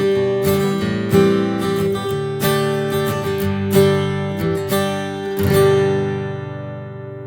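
Martin D-18 mahogany acoustic guitar strummed in chords, with a heavier stroke about every second and a half and lighter strokes between. The last chord, about five seconds in, is left to ring and slowly fade.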